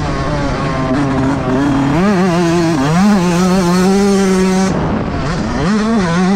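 Yamaha YZ125 single-cylinder two-stroke motocross engine revving hard under the rider's throttle, its pitch climbing and dipping through gear changes. The revs hold high, drop away sharply about four and a half seconds in, then climb again near the end.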